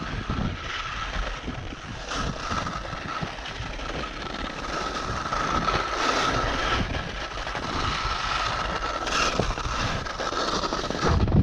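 Atomic skis hissing and scraping over firm snow during a fast descent, mixed with wind rushing over the camera microphone and a faint steady whistle. Three short louder scrapes come about two, six and nine seconds in.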